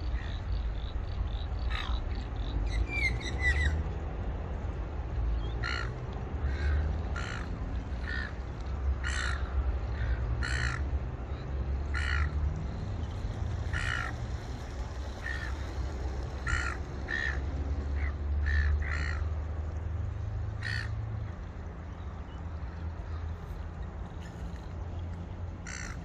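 A crow cawing over and over, a long string of short, harsh calls coming about one a second, over a steady low rumble.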